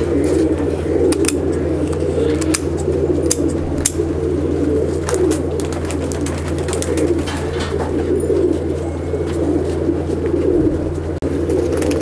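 Many Andhra (Madrasi) pigeons cooing together in the loft, a dense continuous chorus, with scattered light taps and a steady low hum underneath.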